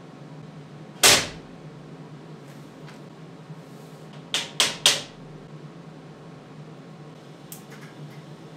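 Stainless-steel sheet parts knocking together as they are fitted by hand: one sharp knock about a second in, then three quick clacks about four and a half seconds in, over a steady low hum.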